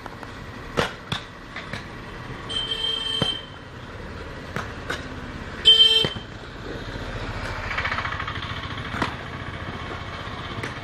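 Street traffic with two vehicle horn honks, one held for under a second about two and a half seconds in and a louder, shorter one about six seconds in. Scattered sharp knocks and a vehicle passing come near the end.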